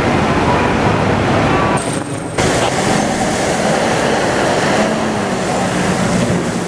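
Fire engines running, under a loud rumbling noise of wind on the microphone; the sound drops out briefly about two seconds in, where the picture cuts.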